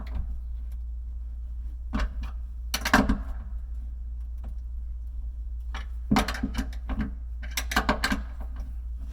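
Short clusters of metallic clicks and knocks from a countertop miter draw bolt and its washer being handled and fitted with hand tools: a few near two and three seconds in, then more from about six to eight seconds in, over a steady low hum.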